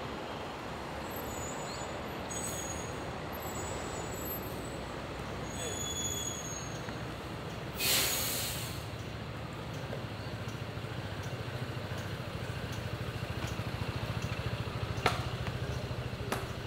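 City street traffic: a steady wash of vehicle noise with a loud hiss lasting about a second, eight seconds in, and a heavy engine's low hum growing stronger through the second half. Two sharp clicks come near the end.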